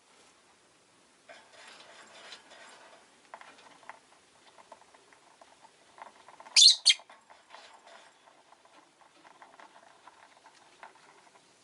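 Rosy-faced lovebird giving two short, shrill chirps in quick succession a little past halfway, among soft scratchy chatter and rustling sounds.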